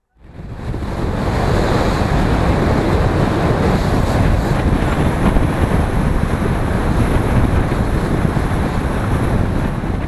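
Loud, steady rush of wind buffeting the microphone of a moving car, with road noise underneath. It rises quickly within the first second.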